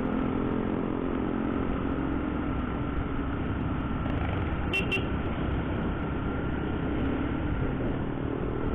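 Motorcycle engine running steadily under way, with wind and road noise rushing over the bike-mounted microphone. Two quick sharp sounds come about five seconds in.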